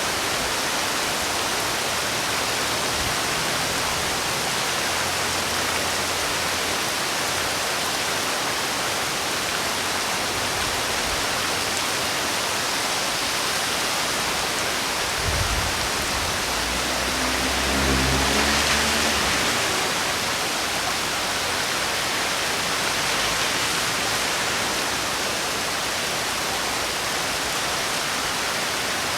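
Heavy rain falling steadily, an even hiss. About halfway through, a low rumble swells for a few seconds and fades.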